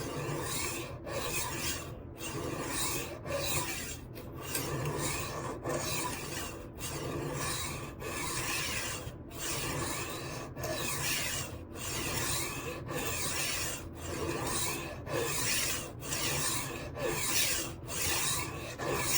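HORL 3 Cruise rolling knife sharpener's diamond disc grinding the edge of a steel chef's knife as it is rolled back and forth: a steady rasp that breaks off briefly at each change of direction, a little under one stroke a second.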